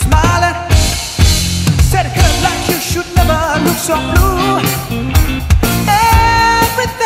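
Live rock band playing: a male lead singer over electric guitar, bass guitar and a drum kit, with steady, regular drum hits.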